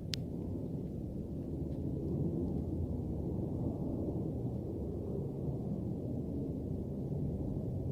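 A steady low rumbling drone with no wind behind it: the unexplained 'strange sound' that has started again. A single sharp click right at the start.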